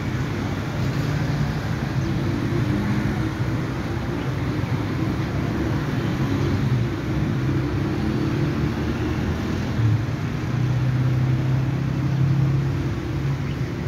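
Diesel locomotive engine running as the train approaches from far down the line, a steady low drone.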